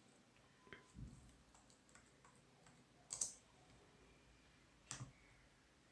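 A few faint, scattered clicks of a computer mouse and keyboard. The loudest comes about three seconds in, and a quick pair of clicks about five seconds in.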